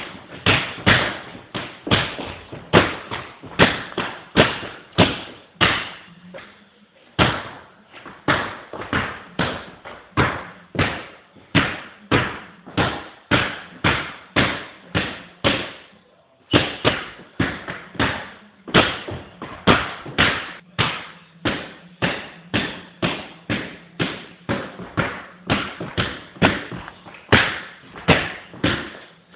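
Basketball dribbled on a hardwood floor: a steady run of bounces, about two to three a second, with two short breaks, about seven and about sixteen seconds in.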